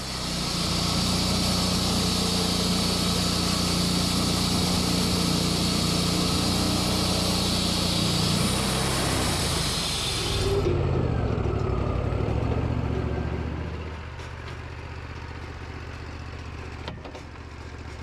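Wood-Mizer LT40 band sawmill sawing a cherry log: the band blade hisses through the wood over the steady sawmill engine. About ten and a half seconds in, the blade clears the end of the cut and the hiss stops suddenly. The engine's pitch then falls, and a little after that it settles to a quieter, steady idle.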